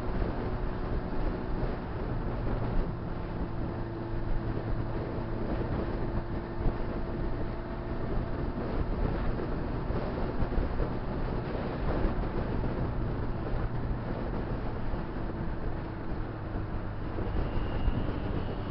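Honda CBR600RR's inline-four engine running at a steady cruise, mixed with wind and road noise on the bike-mounted camera's microphone.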